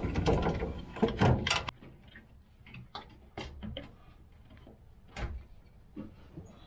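Handling noise from a washing machine drain pump assembly being worked into place: a rough scrape and knocks in the first second or two, then scattered light clicks and taps.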